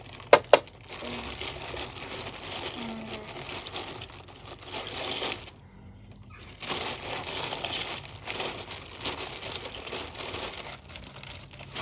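Hands rummaging through and handling fidget toys: steady rustling and crinkling, with two sharp clicks about half a second in and a brief lull near the middle.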